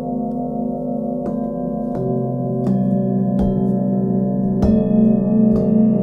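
Forged Tibetan singing bowls, from a set tuned to a scale from C to B, struck one after another about six times. Each strike adds a new ringing note over the lingering hum of the bowls struck before.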